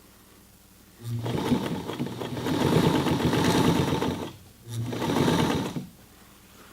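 Singer 237 sewing machine stitching through a denim hem in two runs: the first begins about a second in and lasts about three seconds, and the second, shorter one follows after a brief pause. Each run starts with a short low motor hum and is followed by the rapid clatter of the needle mechanism.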